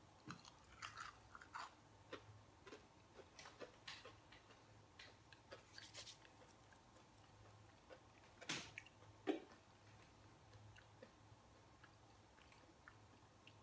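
A person chewing a fried, breaded Doritos Loaded jalapeño-and-cheese bite close to the microphone, with soft crunches and wet mouth clicks coming in quick, irregular bunches. About two-thirds of the way through come two louder sharp clicks, less than a second apart.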